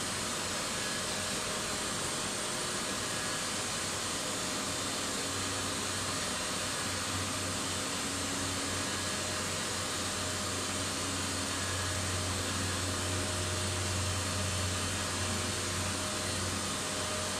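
Wire-rope service lift in a Vestas V80 wind turbine tower descending: a steady whirring hiss from the lift's hoist, with a low hum that grows stronger midway and eases near the end.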